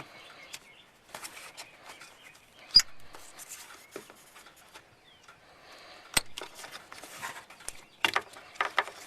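Rubber dust boot being wiggled and tugged off the back of a Honda CR-V headlight housing: scattered rubbing and scraping of rubber on plastic, with a sharp click about 3 s in, another about 6 s in, and a few knocks near the end as it comes free.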